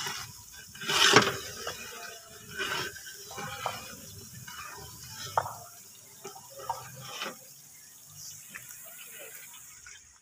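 Sliced onions frying in oil in a large aluminium cooking pot over a wood fire, sizzling and bubbling with many small crackles and a louder burst about a second in.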